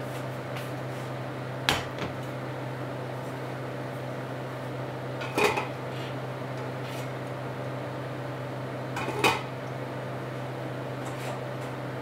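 Stainless steel cooking pots clanking on the counter, three distinct clanks a few seconds apart with a few lighter taps between. A steady low hum runs underneath.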